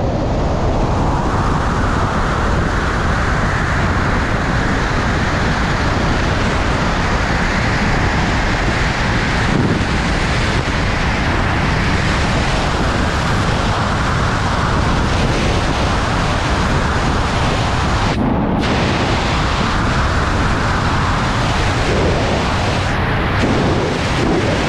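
Wingsuit flight: loud, steady wind rushing over the GoPro's microphone at flying speed. The rush grows higher over the first few seconds as airspeed builds after the exit.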